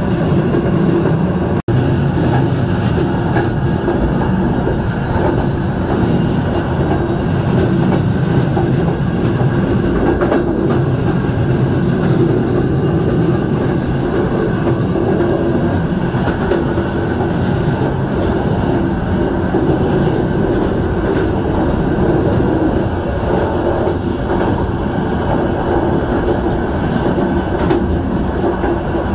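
Passenger train running along the track, a steady rumble of wheels on rails. The sound cuts out for an instant about two seconds in.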